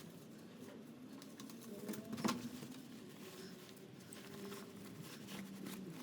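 Faint small clicks and rustling of greasy inner CV joint parts being handled and cleaned, with one sharper knock about two seconds in.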